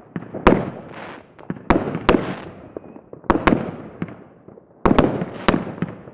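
Fireworks going off: sharp bangs in groups of two or three about every second and a half, each followed by a fading echo.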